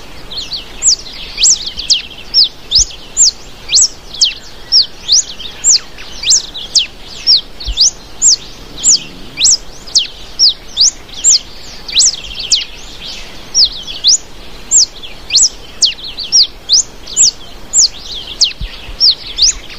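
Ringed warbling finch (Microspingus torquatus) singing: a long run of high, sharp, down-slurred notes, about one to two a second, some in quick pairs.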